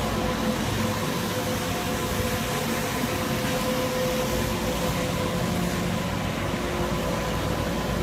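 Compact street sweeper running steadily as it drives along: a constant engine drone with a steady whine over it.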